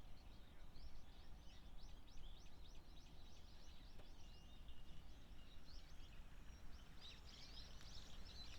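A flock of waxwings giving high, thin trilling calls, many overlapping, growing busier near the end, over a steady low rumble.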